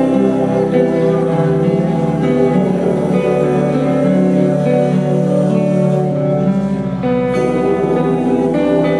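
A band playing loud live music, with held guitar chords to the fore.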